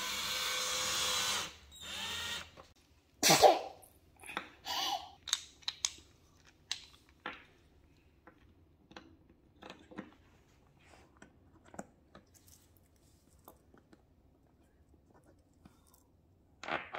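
Cordless drill driving a screw runs for about a second and a half and stops, with a brief second burst soon after. Then a sharp knock and a scatter of light clicks and taps as parts are handled, growing sparse later on.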